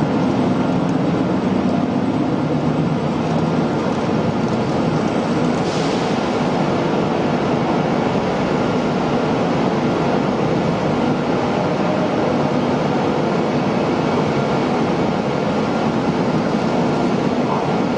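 Steady, loud machining noise from an automated Okuma CNC machine cutting a crankshaft, with a few faint steady tones and a brief hiss about six seconds in.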